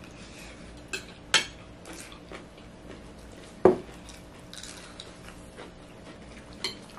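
Metal spoons clinking and scraping against plates while eating, a few sharp clicks. About halfway through comes the loudest knock, with a brief ring, as a glass of cola is set down on the table.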